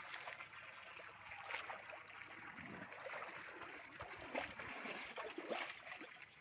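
Water running and trickling onto a freshly cast concrete slab being water-cured, with a few brief louder moments.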